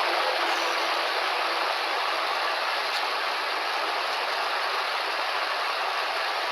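Steady rushing noise with no clear call.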